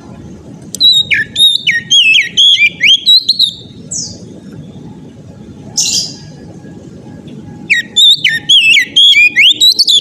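Oriental magpie-robin (kacer) singing loud, rapid whistled phrases in two bursts, one about a second in and one near the end, with short harsh calls between them. A steady low background noise runs underneath.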